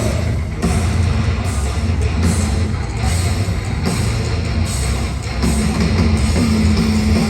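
Heavy metal band playing live at full volume: distorted guitars, bass and a drum kit, in a crowd-recorded concert mix.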